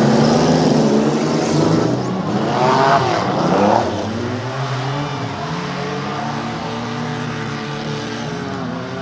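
Several dirt-track race car engines running and revving, their pitch rising and falling. Loudest through the first four seconds, then settling into steadier running.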